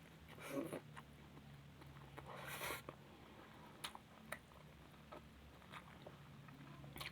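Quiet mukbang eating sounds: a couple of short rustling bursts and a scatter of sharp mouth or utensil clicks over a faint steady hum.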